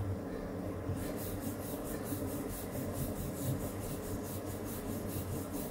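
Wooden rolling pin rolling out flatbread dough on a round wooden board: quick, even back-and-forth rubbing strokes, several a second.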